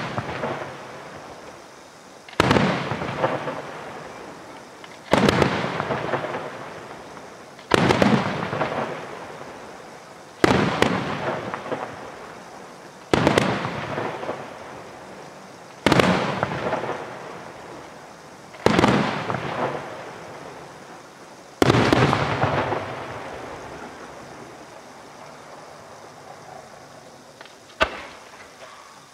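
Aerial firework shells bursting one after another: eight loud bangs about every two and a half to three seconds, each followed by a long fading crackle. A lull follows, then a smaller bang near the end.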